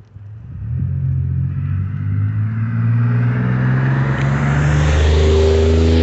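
A motor vehicle's engine and tyres approaching and drawing close, growing steadily louder over several seconds and loudest near the end as it comes by.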